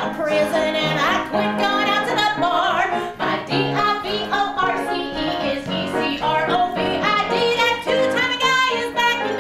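A woman singing a cabaret number with a wavering vibrato over instrumental accompaniment.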